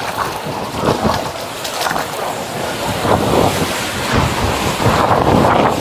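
Floodwater rushing and sloshing, loud and noisy, swelling in surges about once a second, with wind buffeting the microphone.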